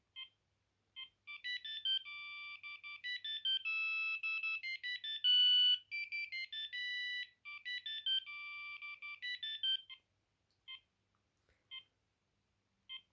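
Maxon MX-6869 mobile phone playing a ringtone through its small speaker: a fast electronic melody of beeping notes that lasts about eight seconds. A few single short beeps come before it and after it.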